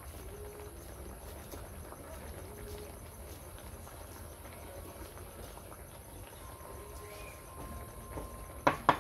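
Faint steady background with light chirps, then near the end two sharp knocks of a knife chopping on a wooden cutting board, the start of a quick run of chops.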